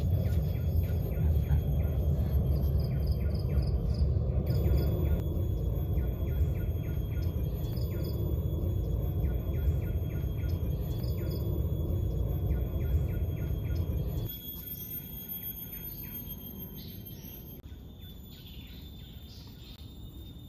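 Forest birds chirping in short repeated calls over a steady high-pitched insect drone, with a loud low rumble underneath that drops away suddenly about fourteen seconds in.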